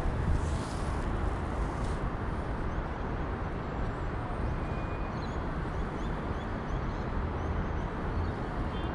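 Steady outdoor background noise with a strong low rumble. A few faint high chirps come about halfway through.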